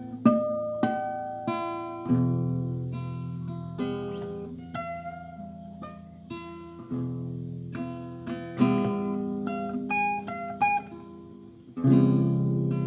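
Acoustic guitar played slowly and unaccompanied, with chords and single notes plucked about once a second, each left to ring and fade.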